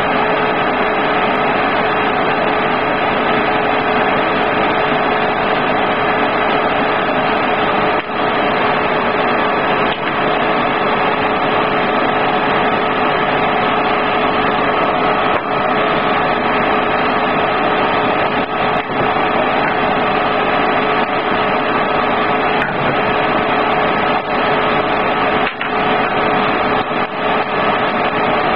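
Hot air rework station blowing, a loud even rush of air with a steady tone running through it. A few faint clicks come through it now and then.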